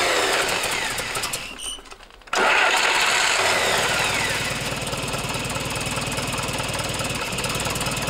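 FSO Warszawa M20 four-cylinder side-valve petrol engine running cold on a test stand. The sound drops away for under a second about two seconds in, then comes back and settles into a steady idle.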